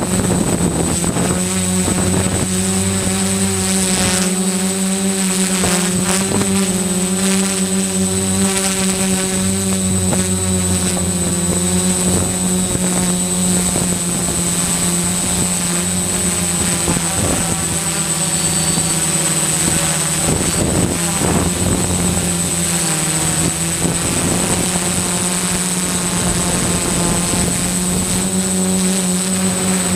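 DJI F450 quadcopter's four brushless motors and propellers buzzing steadily in flight, heard up close from the camera mounted on it. The pitch wavers a little as the throttle shifts.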